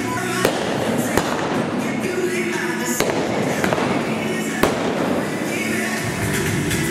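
A .45-calibre revolver firing black-powder blanks at balloon targets during a mounted shooting run: about four sharp, unevenly spaced shots in the first five seconds, over music.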